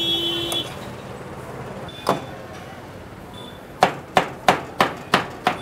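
Metal spatulas striking a flat griddle as chicken shawarma filling is chopped fine. There is one strike about two seconds in, then a quick, even rhythm of about three strikes a second from about four seconds in.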